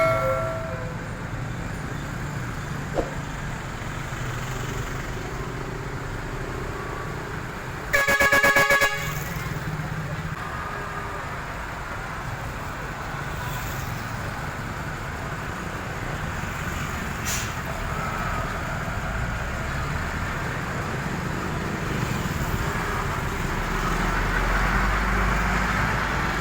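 A truck horn sounds once, a loud blast of about a second roughly a third of the way in, over steady road traffic noise. A low engine rumble builds near the end as a heavy vehicle draws closer.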